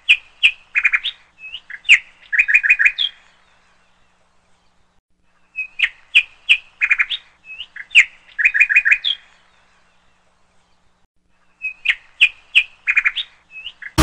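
A small bird chirping in three bouts of quick high chirps, each lasting two to three seconds, with silent pauses of about two seconds between them.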